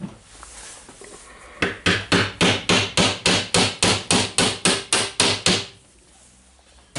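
Gentle hammer taps on metal, a quick even run of about five strikes a second lasting some four seconds. The taps are seating a bearing on the gear assembly of a Milwaukee 1/2-inch impact wrench.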